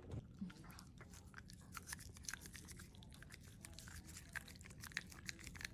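A toothbrush working over a small dog's teeth, with faint, rapid, irregular clicks and scrapes.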